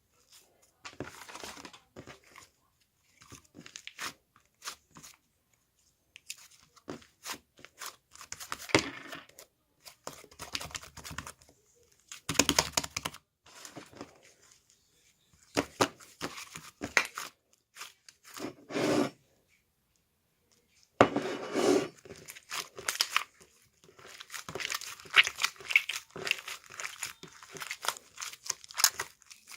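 Irregular bursts of crinkling and tearing as craft materials are handled, separated by short pauses.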